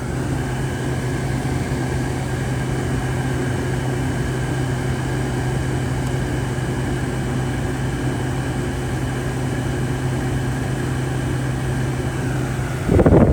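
Frigidaire window air conditioner running, with a steady low hum and the rush of its fan. A short loud knock or rustle comes near the end.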